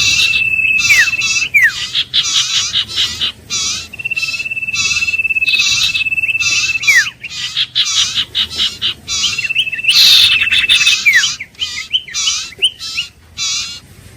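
Iora singing: three long, slightly trilled whistles, each held about a second and a half and ending in a quick falling note. Rapid runs of short repeated chirps fill the gaps between them.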